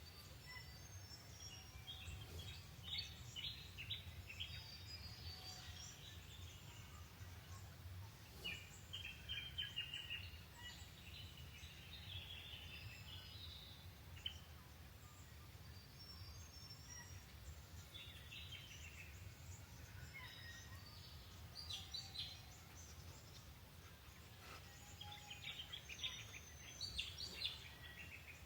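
Faint birdsong: several birds chirping, with short trilled phrases every few seconds, over a steady low outdoor rumble.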